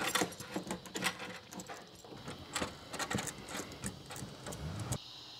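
Thick electrical cable and its wires being handled and fed into a metal breaker panel: irregular scraping, rustling and clicking of the cable against the panel and its opening, stopping abruptly near the end.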